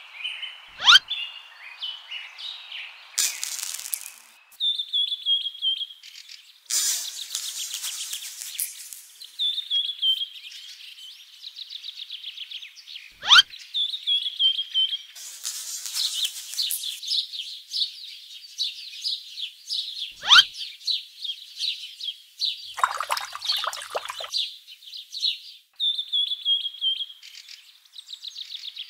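Birds chirping over and over, mostly the same short call that falls in pitch, with a few sharp rising whistles that are the loudest moments. Several brief noisy rushes come and go between the calls.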